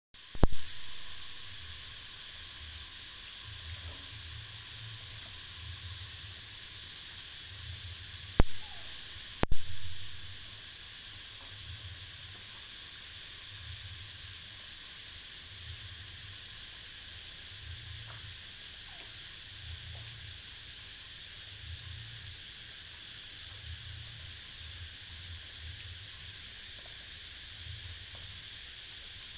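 Designed horror night ambience: steady insect chirring with a fast, even pulse, under a low throb that repeats about once a second. Three sharp hits with short ringing tails break in, one near the start and two close together about eight and nine and a half seconds in.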